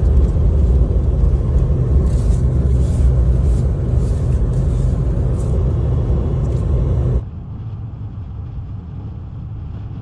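Car driving through a snowstorm, heard from inside the cabin: a loud, steady low rumble of road and wind noise with a hiss above it. About seven seconds in it cuts to a quieter steady hum.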